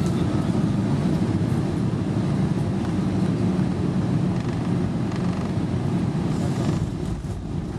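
Cabin noise of an Airbus A320 landing: a steady, low roar of the jet engines and rushing air heard from inside the cabin, with no clear change in level.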